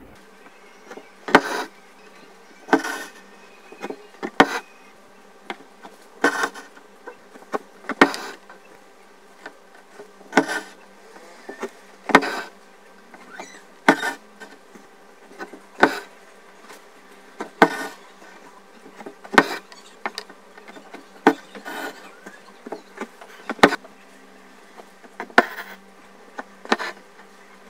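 Hand embroidery in satin stitch: a needle punches through cloth stretched in a hoop and stranded cotton thread is drawn through after it. Each stitch gives a sharp tick and a short rasp, about one stitch every two seconds, over a faint steady hum.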